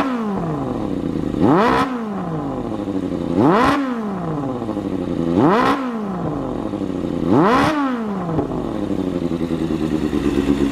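Kawasaki Balius-II's 250 cc inline-four engine running through an aftermarket racing muffler, blipped five times about two seconds apart, each rev climbing sharply and dropping straight back to idle, then idling steadily for the last few seconds.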